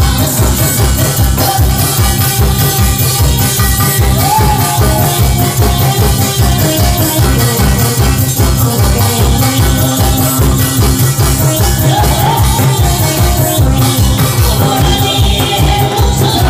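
Lively Korean pumba music with a steady, fast drum beat: barrel drums beaten live along with the band, with jingling hand percussion and a melody line over it.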